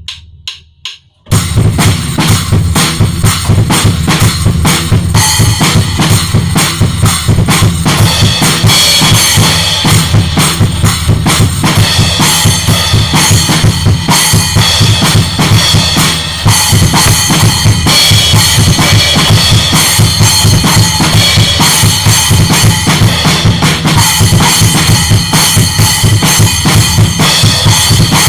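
Maple-shell drum kit played continuously: kick drum, snare and cymbals in a dense groove, after a few faint taps in the first second.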